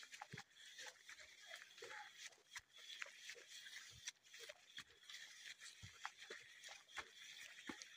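Faint footsteps on a muddy dirt path, a scatter of irregular soft thuds, over a steady high hiss.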